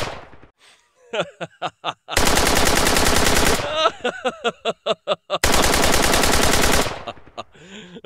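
Two long bursts of tommy-gun fire, each about a second and a half, and a man laughing 'ha-ha-ha' in quick repeated syllables in the gaps between them.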